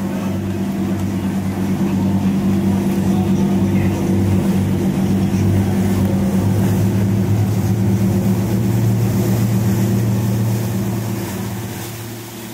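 Boat engine running steadily, a low hum that grows louder over the first couple of seconds, holds, then fades near the end.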